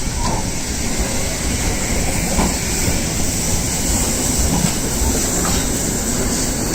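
Class 52 steam locomotive with its train: a steady loud rumble and rush of noise, with a few faint clicks.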